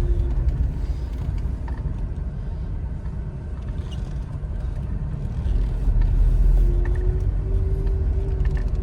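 Kia Picanto being driven, heard from inside the cabin: a low, steady engine and road rumble with a faint held hum. It eases off in the middle and builds again about six seconds in.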